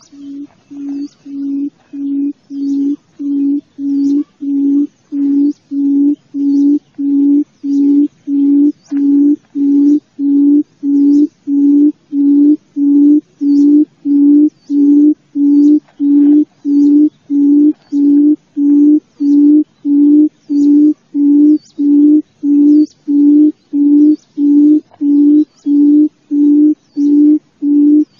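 Buttonquail (cút rừng) calling: a long, even series of low hooting notes, about one and a half a second, swelling in loudness over the first several seconds and then holding steady.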